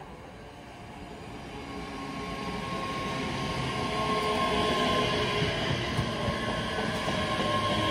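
ScotRail Class 385 electric multiple unit running along the platform, its rumble growing louder over the first few seconds as it draws level and then holding, with a steady whine above the rumble.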